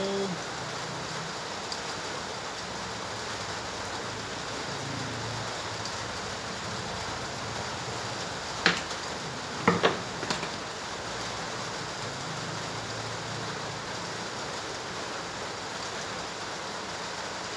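Steady rushing background noise, with a few sharp clicks of small metal parts being handled about halfway through: one on its own, then a quick cluster of three a second later, as a pulley and bracket plate are fitted to a CNC machine's rack-and-pinion drive.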